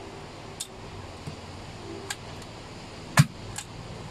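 Pneumatic 34-degree framing nailer firing a nail once, a sharp loud bang about three seconds in, followed by a softer click. A few faint clicks come before it.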